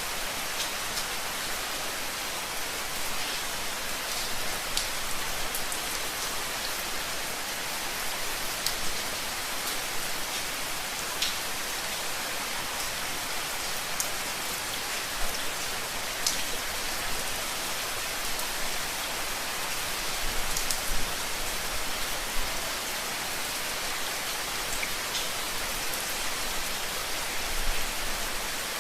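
Steady rain falling on a surface: a dense, even hiss with scattered sharp drop ticks.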